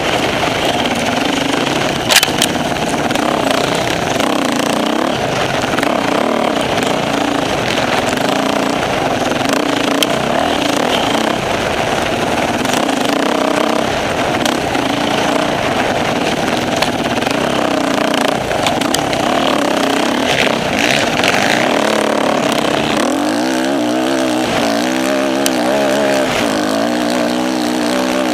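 Off-road motorcycle engine running hard, its pitch rising and falling as it revs up and down, with a sharp knock about two seconds in.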